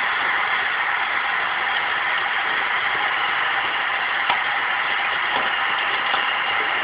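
Hot water running steadily from a tap.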